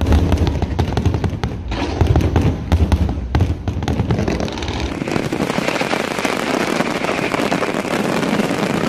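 Fireworks display going off: a rapid run of sharp bangs and deep booms. About halfway through, the booms give way to a dense, continuous crackle.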